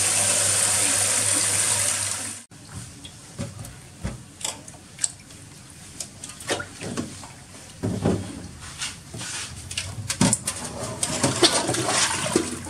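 Kitchen tap running hard into a steel bowl in a stainless-steel sink, cutting off abruptly about two and a half seconds in. Scattered light knocks, clatter and small splashes follow as the washed freshwater eels and the steel bowl are handled, busier near the end.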